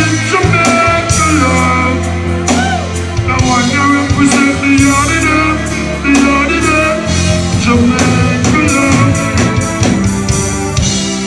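Loud live reggae music from the band: a heavy bass line and drums, with melodic lines over them.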